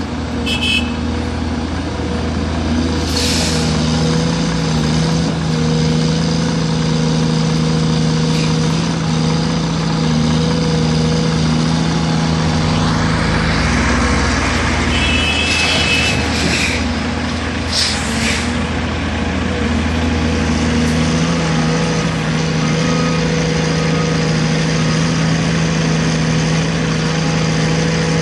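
Cat 336 hydraulic excavator's diesel engine running steadily while it works, its tone shifting about halfway through, with several short hissing bursts.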